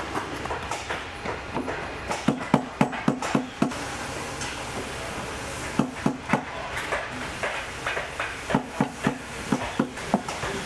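A cobbler's hammer tapping a leather boot piece held over a metal post, in quick runs of several strikes with short pauses between.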